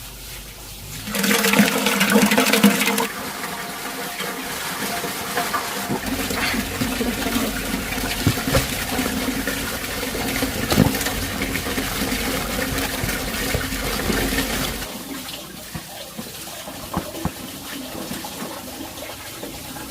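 Water pouring and splashing: a loud rush starting about a second in, easing to a steady flow, then dropping off about three-quarters of the way through.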